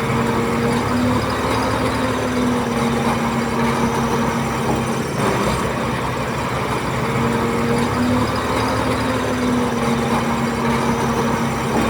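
Heavy diesel engine of earthmoving machinery running steadily under load, a low drone with a held whine above it that dips and recovers slightly in pitch.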